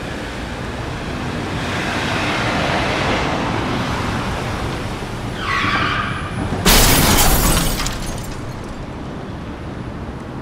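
Car passing close on a street, its road noise swelling and fading, with a brief high squeal about halfway and then a sudden loud burst of noise about two-thirds of the way in.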